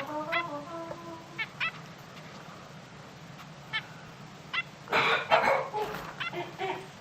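Zebra finches calling: scattered short, nasal chirps, then a denser, harsher flurry of calls about five seconds in.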